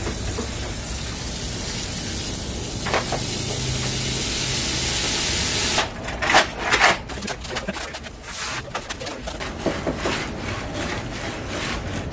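Water running steadily from a garden hose into a plastic 5-gallon bucket, thinning a batch of concrete mix, until it stops suddenly about six seconds in. After that a shovel scrapes and knocks as it stirs the wet concrete in the bucket.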